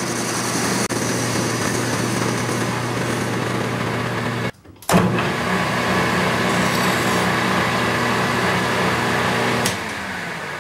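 Metal lathe running, with a carbide insert tool taking a facing cut on the end of a spinning steel bar: a steady motor hum under the hiss of cutting. The sound cuts out briefly just before halfway, then a hand file is worked against the spinning part, and near the end the sound drops as cutting stops while the lathe keeps running.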